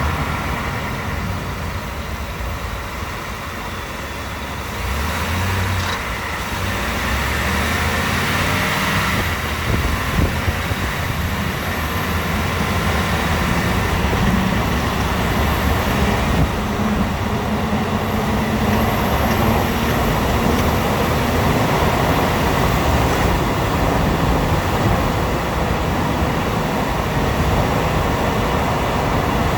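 2018 Ford F-150's 5.0-litre V8 running on a cold engine as the truck drives, with steady road noise and the engine note rising and falling.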